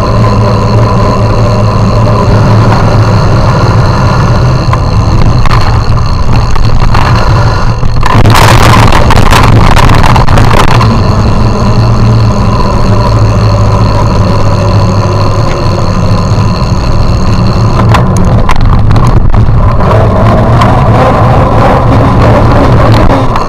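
Steady motor drone of a small vehicle running along at a constant pitch, with louder rushing noise for a few seconds about a third of the way in and again briefly later.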